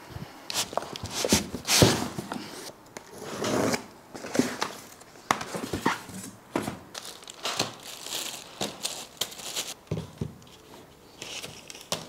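Packaging being handled: plastic wrap crinkling and rustling, with irregular knocks and scrapes of cardboard and foam as parts are unpacked.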